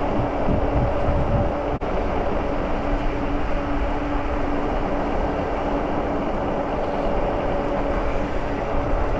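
Wind rushing over the microphone as the Engwe Engine Pro e-bike rolls downhill at about 16 mph, with a steady hum from the bike underneath. The sound drops out for a moment about two seconds in.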